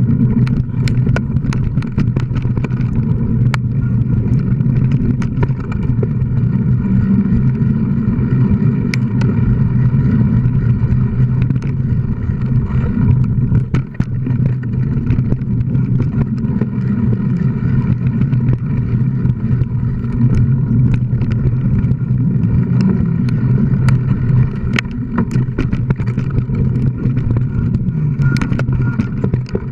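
Mountain bike ridden fast over a dirt singletrack, heard through a bike- or helmet-mounted action camera: a steady rumble of tyres and wind on the microphone, broken by frequent sharp knocks and rattles as the bike goes over bumps and roots.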